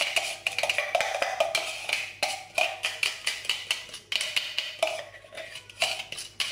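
Rapid hollow knocking on the plastic bowl of an electric food chopper, several taps a second, as it is rapped to shake the last of a thick blended marinade out into a mixing bowl.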